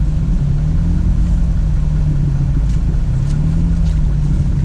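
Vehicle engine running with a deep, steady note, its revs rising and falling a little.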